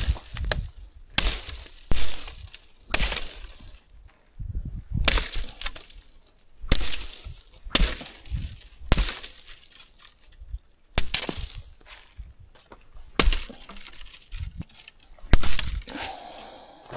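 A machete chopping into a fallen dead branch: sharp, sudden strikes of the blade on wood, roughly one a second, some landing in quick pairs.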